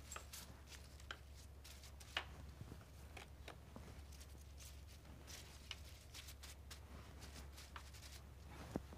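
Faint rustling and light ticks of carnation blooms and their stems being handled and gathered in the hands, over a low steady hum.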